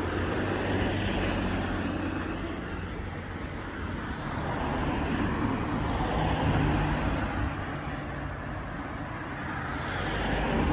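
Road traffic passing close by on rain-wet asphalt: tyre noise and engine rumble from cars that swell and fade three times, about a second in, in the middle, and near the end.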